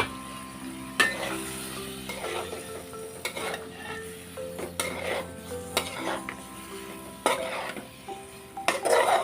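A metal spoon stirring in a cooking pot, clinking against the pan now and then, with a cluster of clinks near the end.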